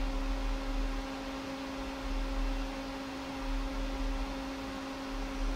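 Steady electrical buzz from the power supply running the amplifier test bench: a constant hum with a steady low rumble beneath. It comes from the power supply itself, not from the amplifier, crossover or speakers.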